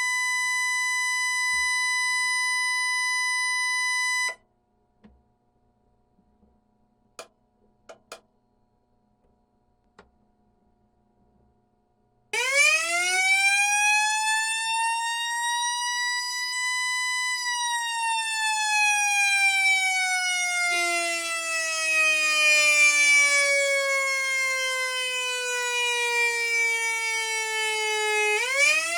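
Whelen Alpha siren sounding its simulated mechanical "Q" tone. It holds a steady high wail that cuts off suddenly about four seconds in, and a few faint clicks follow in the pause. Then it winds up from low to high over about five seconds, slowly winds down over about eleven seconds, and starts winding up again at the very end.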